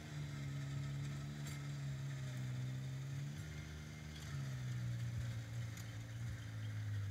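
Kubota BX subcompact tractor's three-cylinder diesel engine running steadily under load as it drives a rear rotary tiller through soil. The engine note drops slightly about four seconds in, as the engine pulls down under the load.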